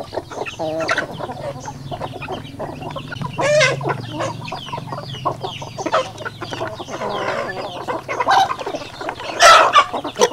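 A flock of chickens clucking and calling while feeding, among many short taps of beaks pecking at the feed trough. Two louder calls stand out, one about three and a half seconds in and the loudest about nine and a half seconds in.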